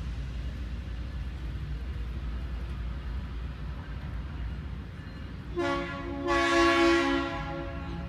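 Diesel freight locomotive's multi-chime air horn sounds a short blast about five and a half seconds in, then a louder blast of about a second, over a steady low rumble.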